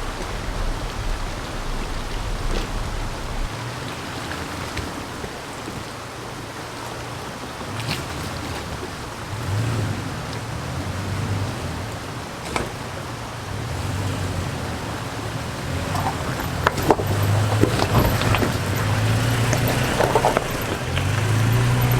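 Toyota Tacoma pickup engine working as the truck crawls through a creek and up a rock, growing louder from about halfway and revving up near the end, over the steady rush of the stream. Scattered knocks and clacks come in the last few seconds.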